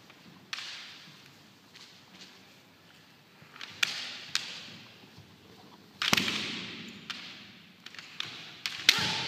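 Bamboo kendo swords (shinai) clacking against each other, with a foot stamping on the wooden floor, as a series of sharp cracks that echo in a large hall; the loudest come about six seconds in and just before the end.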